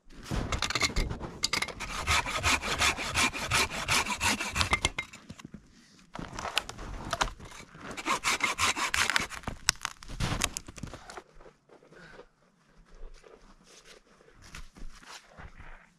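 Hand saw cutting through a weathered dead log in rapid back-and-forth strokes, in two bouts with a short pause about five seconds in. The sawing stops about eleven seconds in, leaving only faint scattered ticks.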